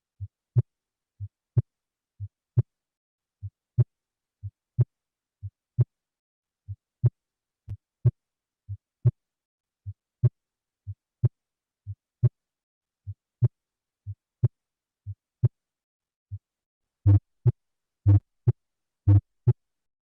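Heart sounds heard through a stethoscope: a steady lub-dub, about one beat a second, the second sound of each pair the louder. Near the end the beats become louder and the first sound of each pair longer.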